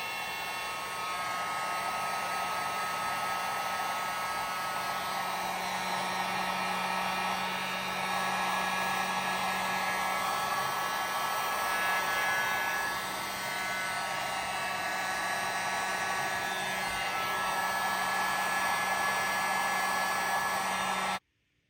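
Electric heat gun blowing steadily with a constant motor hum, shrinking heat-shrink tubing over a spark plug wire covering; it stops suddenly near the end.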